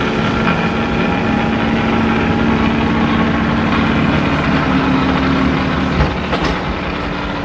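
Compact tractor with a front-mounted snowblower running steadily as it clears snow, a steady engine and blower drone. A short knock comes about six seconds in.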